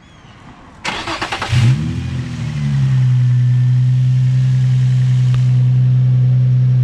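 Infiniti G35's VQ-series 3.5-litre V6, breathing through a newly fitted Z1 Motorsports JWT pop charger intake, is cranked by the starter about a second in, catches with a quick flare in revs, and settles into a steady idle.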